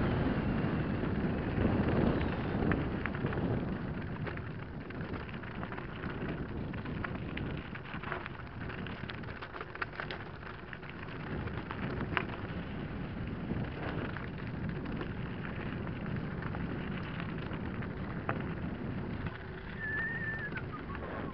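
Mountain bike rolling downhill on a loose limestone gravel track: steady crunch and crackle of the tyres over stones with many small clicks and rattles, and a low wind rush on the microphone that is stronger in the first few seconds. A brief high squeal near the end.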